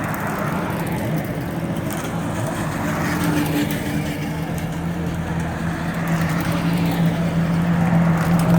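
Hill-climb race car engine running at low, steady revs while driving slowly back down the course, growing louder toward the end as it comes closer.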